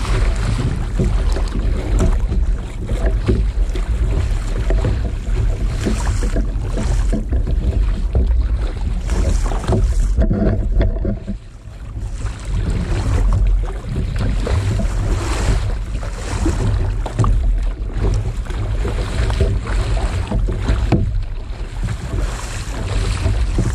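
Double-bladed kayak paddle strokes splashing in choppy sea water, with heavy wind buffeting on the microphone and water slapping the plastic hull. The sound dips briefly about halfway through.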